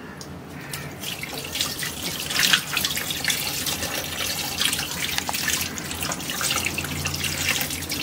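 Kitchen tap running onto hands and anchovies held over a metal bowl, with uneven splashing as the fish are rinsed under the stream.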